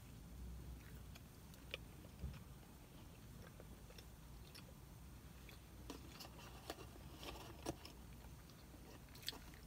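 A bite into a crispy chicken biscuit, then quiet chewing with faint, scattered mouth clicks.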